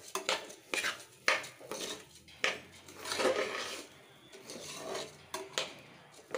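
Metal spatula scraping and clinking against the inside of an aluminium pressure cooker as raw washed rice is stirred and turned in oil, the grains rustling with each stroke. Irregular strokes, several a second, with sharp metallic clicks.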